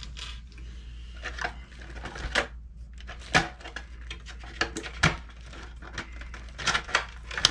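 Irregular clicks, taps and plastic rattles of hands handling an RC buggy as its plastic body is taken off the chassis.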